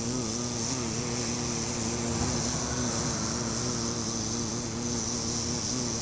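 Bumblebee buzzing, a low hum that wavers in pitch, over a steady background hiss.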